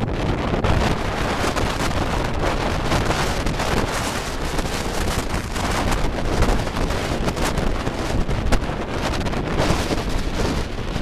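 Wind buffeting the camera microphone: a loud, rumbling rush of wind noise that comes and goes in uneven gusts.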